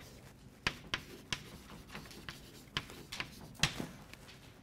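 Chalk writing on a blackboard: a string of short, sharp taps and scratches at irregular intervals as the letters are stroked on.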